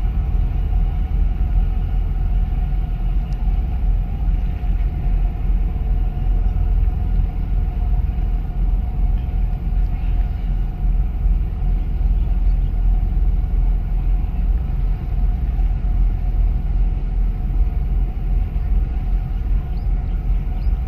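Steady low engine rumble with a constant hum above it, heard from aboard a boat on the water.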